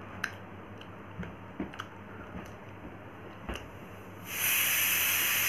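Apple slice being eaten, with a few faint clicks of chewing. About four seconds in, a loud steady hiss starts suddenly and keeps going.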